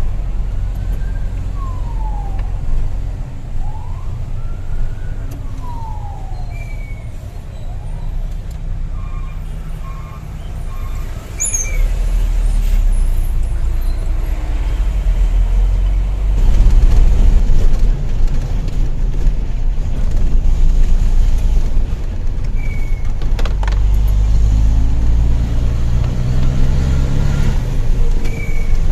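Hino Lohan dump truck's diesel engine running on the road, heard from the ride along, growing louder about 12 seconds in and again near 17 seconds. In the first six seconds a few siren-like falling and rising tones sweep over it.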